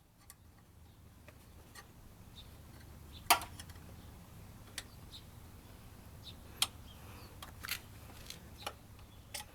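Scattered metallic clicks and taps of a hand wrench and bolt hardware while a crash-bar bolt is fitted and tightened, with one louder clank about a third of the way in. A faint steady low hum lies underneath.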